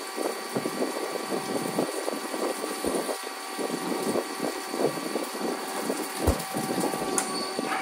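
Mazak QTN-350 CNC turning center cutting a spinning part with coolant flowing: an uneven rushing, hissing cutting noise over a steady whine in several pitches, with a few sharp ticks.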